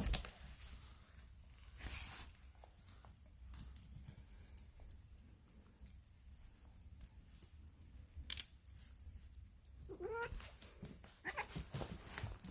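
Domestic cat giving one brief, weird call that rises in pitch about ten seconds in. Scattered clicks and rustles come before it.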